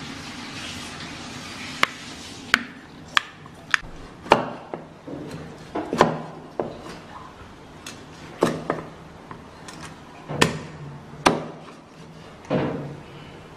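Cleaver chopping a small fish into pieces on a round wooden chopping board: about fifteen sharp chops at an uneven pace, starting about two seconds in.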